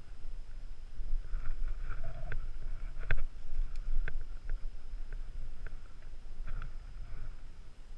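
Wind buffeting the microphone of a helmet-mounted camera, with scattered sharp clicks and knocks of climbing gear, rope hardware and boots against rock as climbers move along a fixed rope; the loudest knocks come about three and four seconds in.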